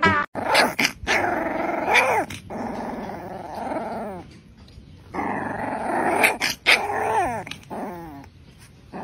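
Young black-and-tan puppy growling in play as it mouths a person's fingers, in two spells with a few short falling yelps.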